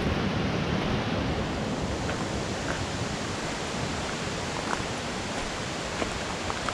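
Steady rushing outdoor noise, with a few faint ticks.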